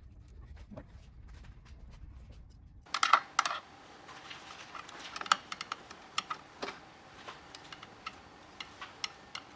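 Light, irregular clicks and taps of small parts and a screwdriver being handled while a sensor is screwed into the label printer's frame, with a quick cluster of louder clicks about three seconds in.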